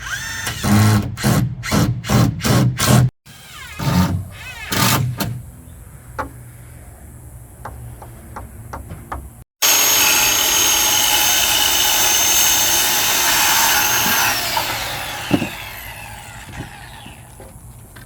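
Power tool working on pallet wood. First it is run in quick short bursts, about two a second, then in two more bursts. Later it runs steadily for about five seconds and then winds down with falling pitch.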